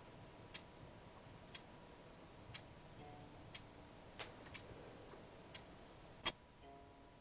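A clock ticking about once a second in a quiet room, the ticks becoming much louder near the end. A few faint held notes sound softly underneath.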